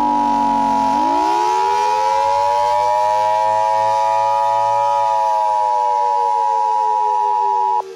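Emergency alert attention tone, one steady high beep held for nearly eight seconds that cuts off abruptly near the end. Under it a civil defense siren wails, its pitch rising for about four seconds and then slowly falling.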